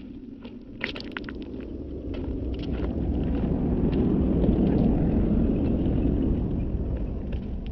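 A motor vehicle passing close by on the street, its low rumble swelling to a peak about halfway through and then fading away. A few sharp clicks about a second in.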